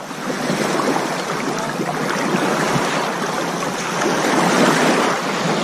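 Shallow seawater washing and lapping over a pebble shore, a steady busy splashing hiss that swells over the first second.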